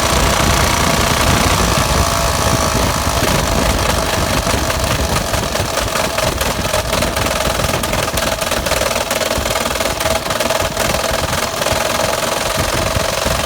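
Car engine running with a rapid, repeated metallic knock: rod knock from a blown engine.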